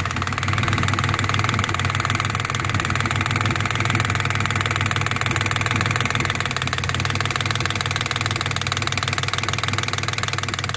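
Nissan engine idling steadily with a fast, even ticking: the puffing of an exhaust leak through a hole in the exhaust manifold.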